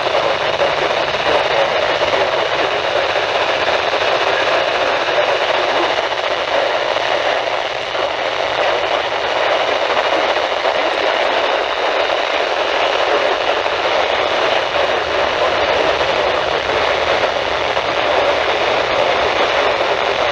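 Steady radio static: an even hiss from a weather radio receiver that is picking up no clear broadcast.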